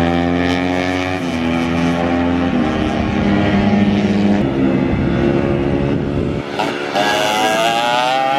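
Racing motorcycle engines revving hard as the bikes ride through corners, the pitch dropping and climbing with the throttle, with a rising whine near the end as one accelerates. The sound changes abruptly several times.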